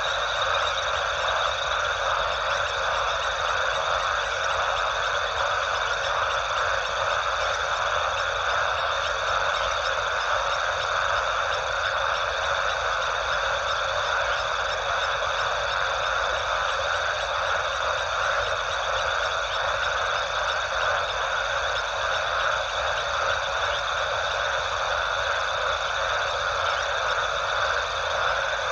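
Dense, steady night chorus of calling frogs, with a continuous high trill layered on top.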